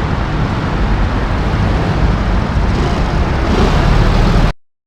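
Suzuki Burgman scooter engine idling steadily just after a push-button start, now catching without revving once its throttle position sensor has been set back to the right angle. The sound cuts off abruptly near the end.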